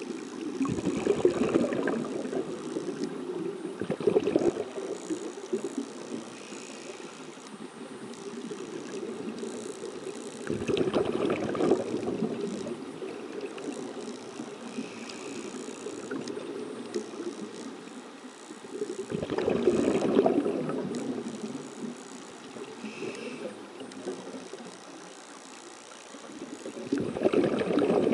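Scuba regulator exhaust bubbles heard underwater: a bubbling rush of exhaled air lasting two or three seconds, four times at intervals of about eight to nine seconds, with quieter water noise in between.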